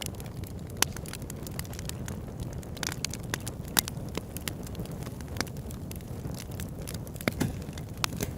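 Campfire crackling, with sharp irregular snaps and pops of burning wood over a steady low rumble.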